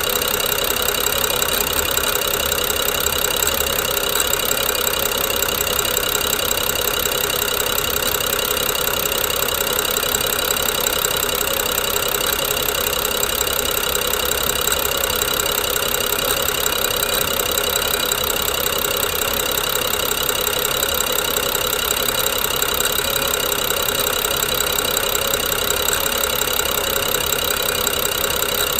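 BMW N55 turbocharged inline-six idling roughly, with a steady fast clicking and grinding noise that the owner takes to come from the Valvetronic motor gear and eccentric shaft, going with a jerky idle.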